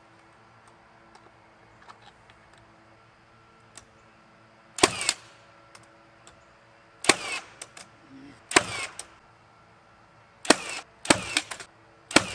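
Pneumatic nail gun firing seven shots at uneven intervals, each a sharp bang with a short hiss after it, driving nails into the coop's wooden framing.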